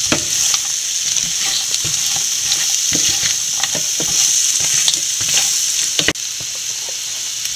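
Crab pieces with onion frying dry in a non-stick pan: a steady sizzle, with a wooden spatula stirring and scraping through them in irregular strokes. No water or gravy is added; the crab is being roasted dry. The sound dips briefly about six seconds in.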